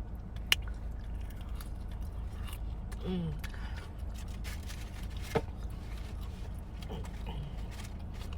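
Eating sounds of chicken wings being chewed, with two sharp clicks and a short hum of a voice about three seconds in, over a steady low hum.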